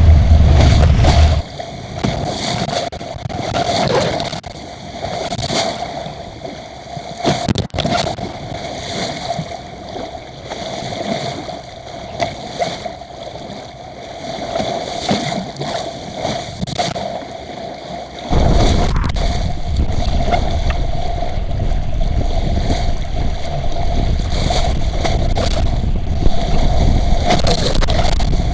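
Water gurgling and sloshing along the hull of a small sailboat under way in strong wind, with heavy wind rumble on the microphone for the first second or so and again, starting suddenly, about two-thirds of the way through. A steady hum runs underneath throughout.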